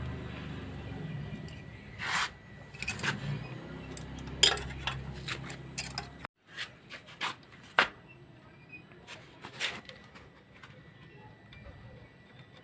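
Hand tools and metal engine parts clinking and tapping in scattered sharp knocks during a motorcycle engine teardown. A low background hum underneath stops abruptly about six seconds in.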